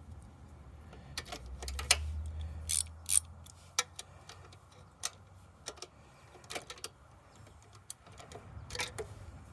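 Irregular metallic clicks and clinks of hand tools, a socket ratchet among them, working on the ignition coil mounting of a motorcycle. A low rumble sits under the clicks for a couple of seconds near the start.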